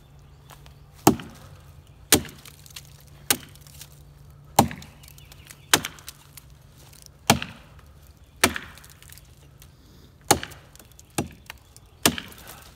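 Axe chopping into a downed pine limb: about ten sharp chops, roughly one a second.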